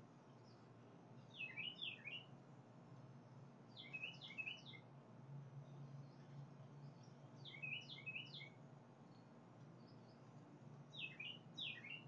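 A songbird singing: four short phrases of quick, descending notes, about three seconds apart, over a faint steady low hum.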